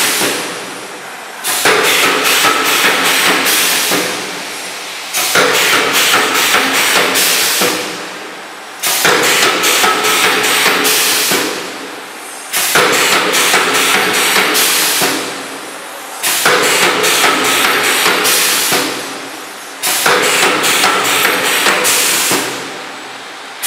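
Multi-head wire mesh welding machine cycling: its row of welding heads clatters in rapid bursts of strikes about two and a half seconds long. A short lull follows each burst, and the cycle repeats about every three and a half seconds.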